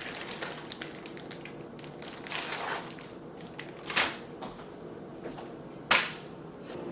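Kitchen handling noises: soft rustling, with two sharp knocks, the second about six seconds in the loudest.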